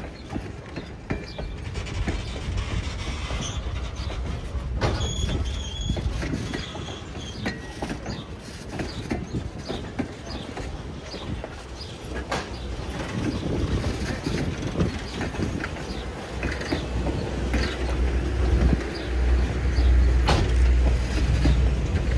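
A steam-hauled train running along the track and growing louder toward the end: a deep rumble with wheels clicking over the rail joints.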